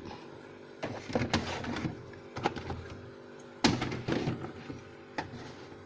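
Plastic food containers and fridge shelves being handled, giving a series of irregular knocks and clunks, the loudest about three and a half seconds in.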